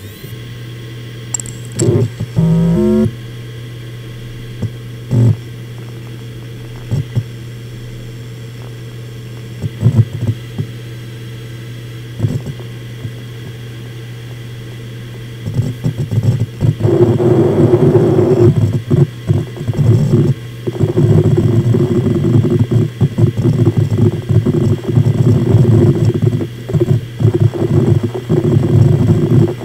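Seagate Enterprise Capacity 2.5-inch 7200 rpm hard drive spinning with a steady low hum and a few scattered head clicks. From about halfway on, its heads seek rapidly and continuously in a busy chatter as the operating system boots from it.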